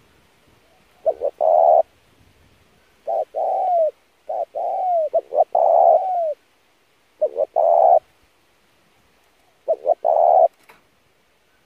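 Spotted dove cooing: about five short phrases of low coo notes, several of them ending in a drawn-out note that falls in pitch.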